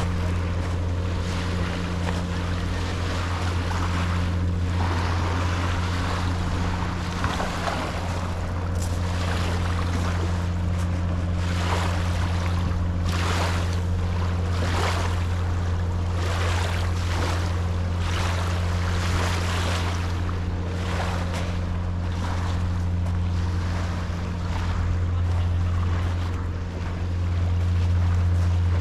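Small sea waves washing onto the beach in repeated surges every second or two, over a steady low hum.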